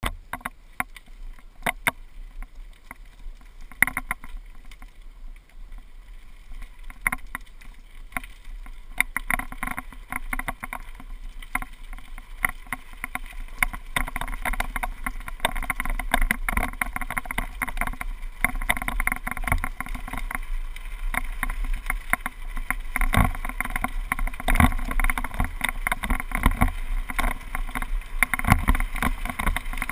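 Rattling of a GoPro HD camera's loose mount on a mountain bike running downhill over gravel, with tyre noise on the gravel. The uneven clatter is sparser at first and gets busier and louder from about ten seconds in.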